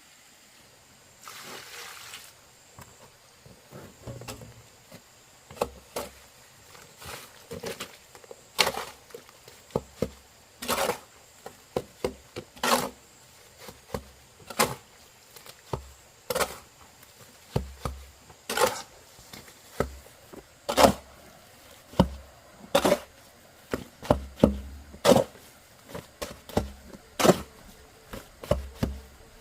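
Repeated blows on wood: lighter knocks at first, then a hard strike about every two seconds with smaller knocks between.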